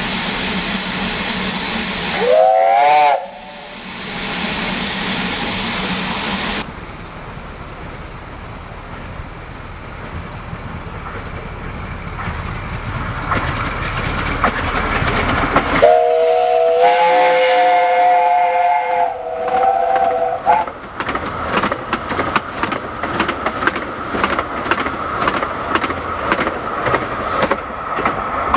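Steam locomotive whistles with escaping steam: a loud steam hiss with a short whistle rising in pitch about two seconds in, then, after a sudden cut, a longer whistle of several notes sounding together. The whistle is followed by the locomotive's exhaust beats, about three a second.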